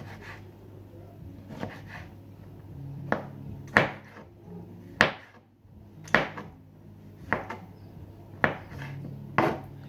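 Sharp knocks on wood in a kitchen, about one a second, over a faint low hum.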